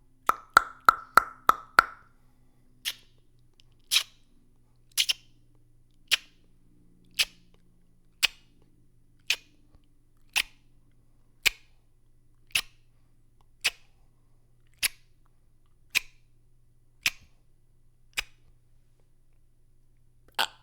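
Beatbox mouth percussion: a quick run of about six clicks, then single sharp clicks or pops about once a second.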